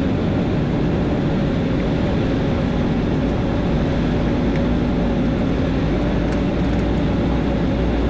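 Steady rumble of a vehicle in motion, with a faint constant hum under an even wash of noise that does not change.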